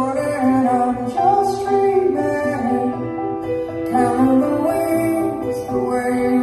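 A song with a sung melody over steady bass, played loudly through Kevler ZLX 15 passive PA loudspeakers and subwoofers during a sound check.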